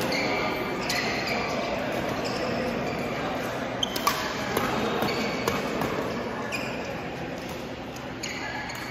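Badminton doubles rally: shoes squeaking on the court mat many times as the players move, with a few sharp racket hits on the shuttlecock, the loudest about four seconds in.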